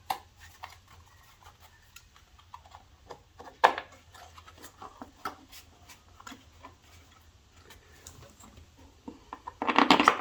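Light clicks and taps of parts being handled and refitted on a lawnmower, with one sharper click about three and a half seconds in and a louder flurry of handling noise near the end.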